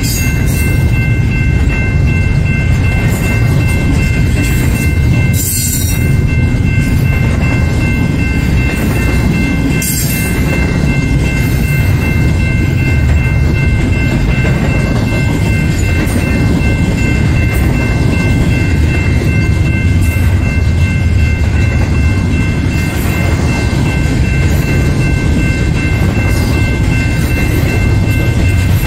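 Double-stack container freight train rolling past at close range: a steady, heavy rumble of wheels on rail, with a few steady high tones held throughout.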